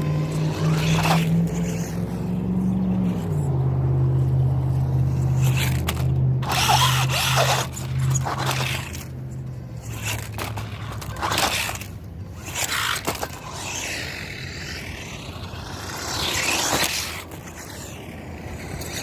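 Fayee FY03 Desert Eagle RC truck driving: its electric motor hums at a steady pitch that drops a step about three seconds in and fades out about halfway through, while the tyres scrape over the ground in irregular bursts.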